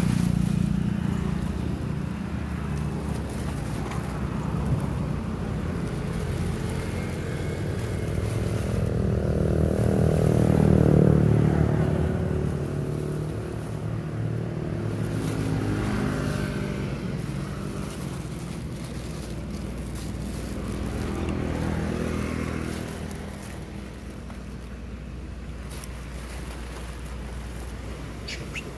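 Motor vehicle engines running, with a swell as a vehicle passes about eleven seconds in and smaller swells later.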